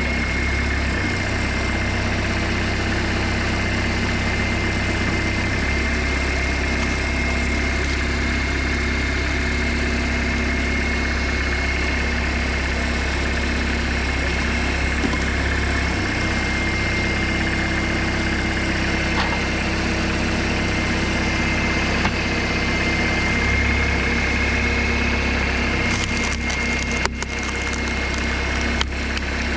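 A homemade tractor's engine runs steadily while driving a hydraulic log splitter. Its note shifts a few times as the ram works, with a steady high whine over it. Wood creaks and cracks as logs are forced apart on the wedge.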